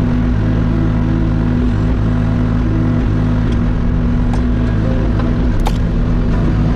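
Hauyee HY35C mini excavator's engine running steadily, with a few sharp clicks between about three and six seconds in.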